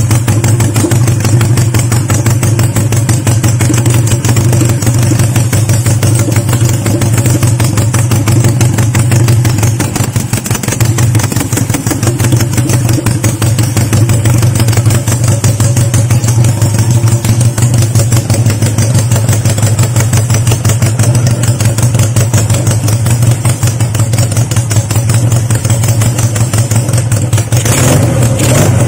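Honda CB175's parallel-twin four-stroke engine idling steadily while it warms up, with a brief rise in pitch near the end.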